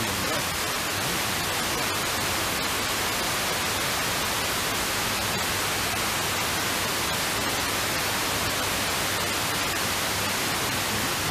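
FM radio static: a steady, even hiss from an RTL-SDR receiver tuned to the OIRT band at 67.97 MHz, with a few faint clicks. The distant sporadic-E signal has faded into the noise, so the station's speech drops out.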